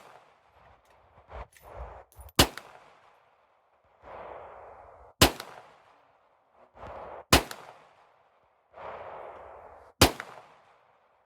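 Semi-automatic pistol firing four single shots, spaced about two to three seconds apart, each sharp crack followed by a short echo.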